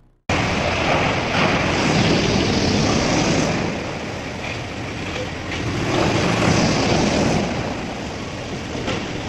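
Industrial wood shredder running and grinding wood: a loud, dense, steady noise that cuts in abruptly just after the start.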